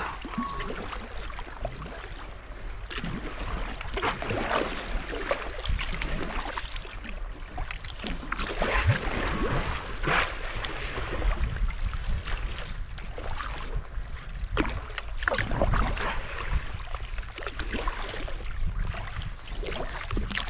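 Dolphins surfacing close beside a kayak and blowing, with several short, sharp puffs of breath, over sea water lapping and splashing against the hull.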